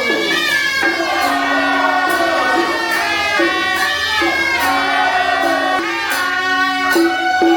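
Traditional temple band music: a loud, pitched wind melody that slides between notes, with several parts layered and short percussion strikes running through it.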